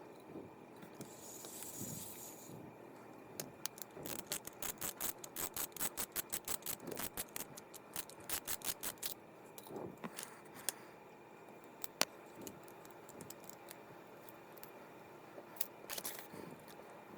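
A fishing reel handled at close range: a run of quick light clicks at about four a second, with scattered single ticks and a short hiss near the start.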